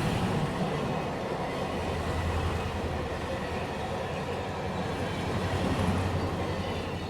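Train running on rails with a steady low rumble, swelling about six seconds in and starting to fade near the end.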